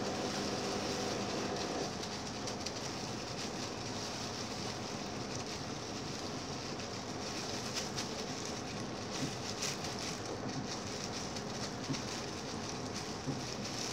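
Gloved hands squishing and kneading minced pork in a stainless steel bowl, with the crinkle of thin plastic gloves and small wet clicks over a steady background hiss.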